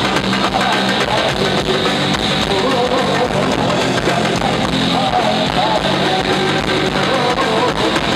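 Live band music: electric guitar with a male singer's voice over it, played loud and continuous through a PA.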